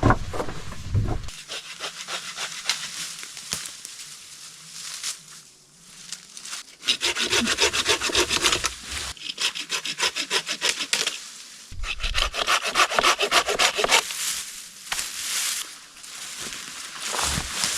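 Rhythmic rasping scrapes, something rubbing quickly back and forth, in runs of a couple of seconds with quieter scraping between them.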